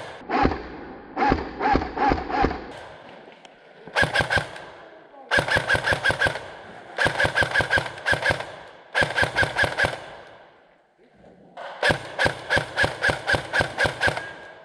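Airsoft electric rifle (AEG) firing rapid full-auto bursts, about six volleys of sharp clicks with the gearbox's whine under each, separated by short pauses.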